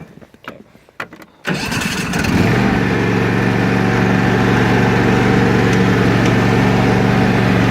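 A few faint clicks, then a key-started riding lawn mower engine is cranked by its starter about a second and a half in, catches within a second and settles into a steady idle.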